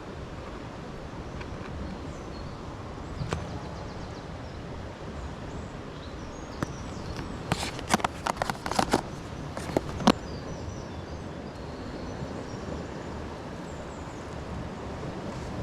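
Steady outdoor noise of wind and sea. One sharp click comes about three seconds in, and a quick run of sharp clicks and knocks comes around eight to ten seconds in.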